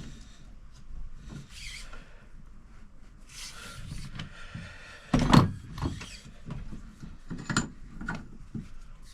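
Hand tools on the KYB fork, tightening a nut back down: a run of short scraping and ratcheting sweeps with metal clicks, and one loud knock about five seconds in.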